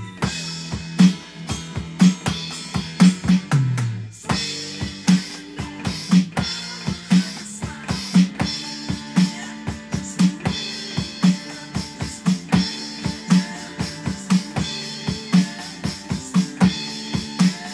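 Rock drum groove on an electronic drum kit with kick and snare, played along with the recorded hard-rock track and its bass line. There is a short break about four seconds in, then a steady beat.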